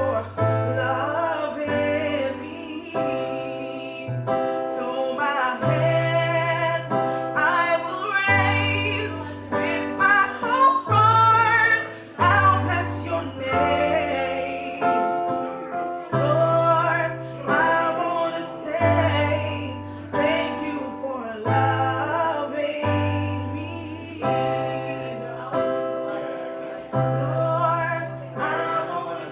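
A song in which a woman sings over sustained keyboard chords and a deep bass line that moves to a new note every second or two.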